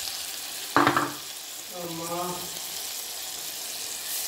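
Hot oil sizzling steadily as chopped tomatoes fry with onions and spice masala, stirred with a plastic spatula. A sudden loud burst about a second in, and a short voice sound about two seconds in.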